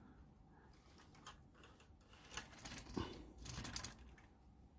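Faint, scattered clicks and taps of plastic Lego parts as a toy forklift is pushed by hand over a studded baseplate and its pallet is set down, busiest in the second half.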